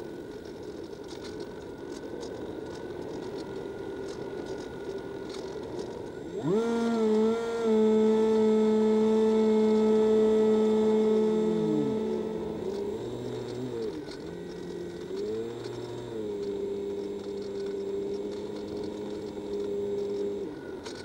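Multiplex EasyStar model plane's electric motor and propeller: a faint whine at first, then about six seconds in it throttles up suddenly to a loud, steady whine. Around halfway the pitch falls and rises twice as the throttle is eased off and opened again, then holds steady until it drops back just before the end.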